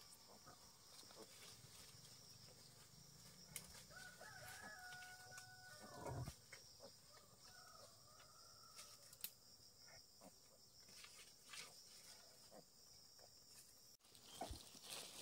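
Faint rooster crow, once, about four seconds in, lasting about two seconds and dropping off at the end, over a faint steady high buzz.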